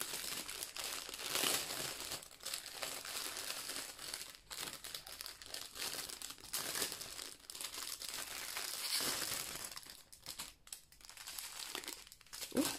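Clear plastic bag of diamond-painting drill packets crinkling as hands open it and handle the small packets inside, easing off briefly about ten seconds in.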